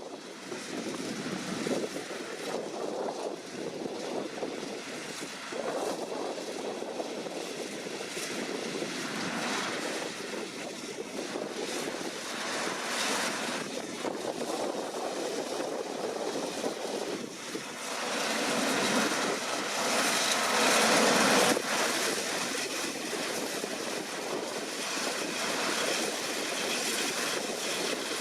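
Deutz-Fahr C9306TS combine harvester at work: a steady engine and machinery noise that grows louder for a few seconds after the middle.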